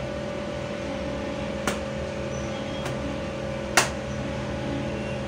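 Plastic clicks as the ribbon cartridge of an Epson LX-350 dot-matrix printer is fitted by hand: a light click a little under two seconds in, a fainter one about a second later, and a sharper one near the end. A steady hum runs underneath.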